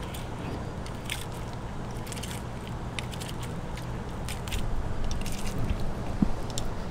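A 6-inch curved boning knife slicing through wahoo flesh along the backbone. The blade makes a quick, irregular run of small crisp clicks and scrapes as it catches on the bones, a little louder near the end.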